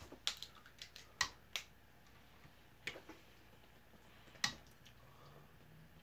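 Crompton Greaves High Breeze ceiling fan spinning up from a standstill on high. It is faint, with a handful of sharp, scattered clicks and ticks, and a faint low hum comes in near the end.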